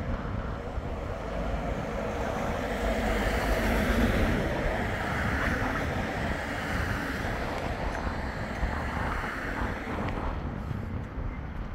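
Wind buffeting the microphone, with a low rumble throughout, while a Bombardier Flexity 2 tram approaches along the track and draws close near the end.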